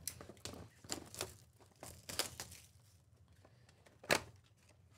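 Plastic shrink wrap being torn and crinkled off a cardboard trading-card box, in a series of short scratchy rips and crackles, with one sharper, louder crackle about four seconds in.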